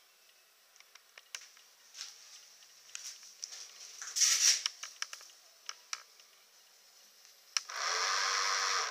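Small electric motor of a homemade RC boat switched on from the transmitter about two thirds of the way through, running steadily for about a second and spinning the propeller. Before it, scattered light clicks and a short rustling noise about halfway through as the styrofoam boat is handled.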